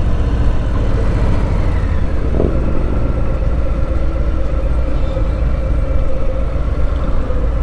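Harley-Davidson V-twin motorcycle engine running steadily under way, heard from the rider's seat as a low rumble mixed with wind noise.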